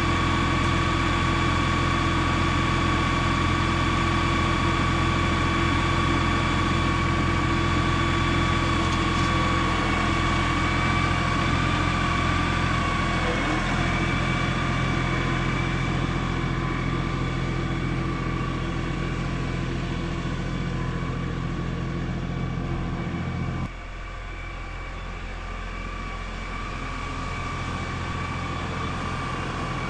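Farm tractor engine running steadily. About three-quarters of the way through, its deep hum cuts off suddenly and it runs quieter, slowly picking up again.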